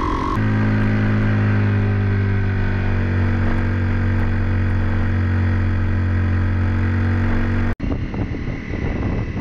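Honda CRF250 Rally's single-cylinder engine running steadily at cruising speed, its pitch easing down slightly. Near the end it cuts off abruptly to rougher engine sound buffeted by wind on the microphone.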